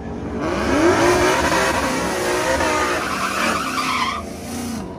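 Logo sound effect of a car engine revving while its tyres squeal. It starts about a third of a second in and fades away after about four seconds.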